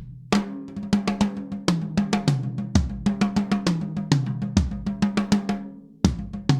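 Sonor Prolite drum kit played in a steady groove of rapid strikes, with snare and bass drum prominent and the drums ringing between hits. The playing stops and rings out about five seconds in, then starts again just before the end.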